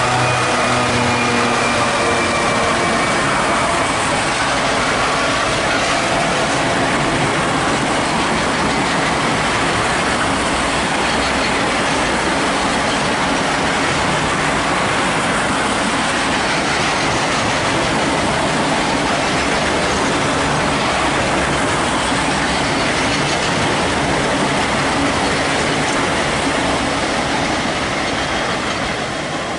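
A DB Cargo Class 66 diesel locomotive passes, its engine note fading over the first few seconds. It is followed by the steady noise of a long train of freight wagons rolling past on the rails, which eases off near the end.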